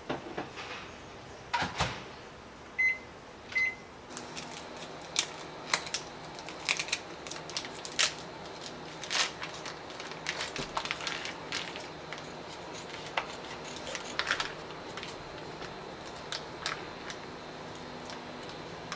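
Two short keypad beeps, then a microwave oven humming steadily. Over it, crinkly plastic is torn and peeled off the cap of an amazake bottle, in many sharp crackles.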